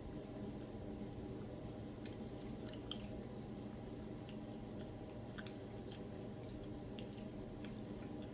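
Faint chewing of a soft candy, with a few small clicks and smacks here and there over a steady low room hum.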